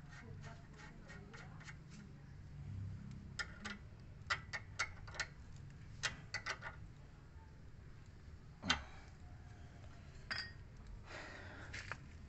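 Faint metallic clicks and clinks of spanners working the upper nut of a new stabilizer link on a Ford EcoSport's front suspension, in quick runs, with one louder metal knock about two-thirds of the way through.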